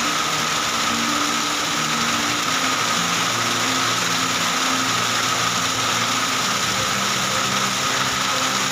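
Heavy rain mixed with hail falling steadily, an even hiss, with a low steady hum underneath.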